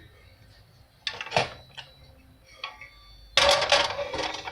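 A cooking utensil knocking and scraping against metal cookware: a few short clicks, then a louder scrape lasting about a second near the end.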